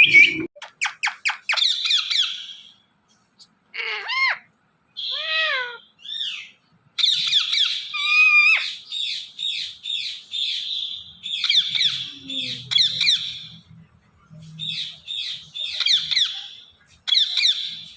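Indian ringneck parakeet chattering and calling: a quick run of clicks, a few rising-and-falling whistled notes, then repeated bursts of raspy chatter.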